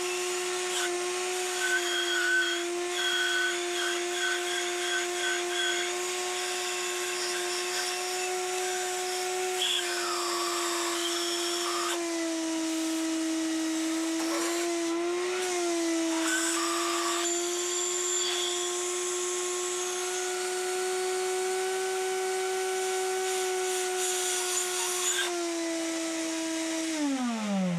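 A handheld electric power tool's motor runs at a steady speed, wavering slightly in the middle, then winds down with falling pitch near the end as it is switched off.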